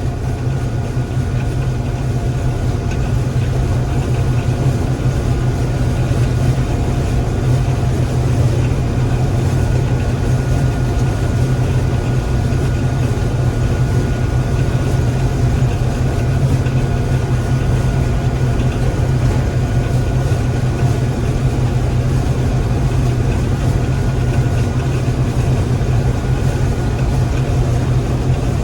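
Gleaner M3 combine running steadily while harvesting wheat: a constant low engine drone with a few faint steady whines above it.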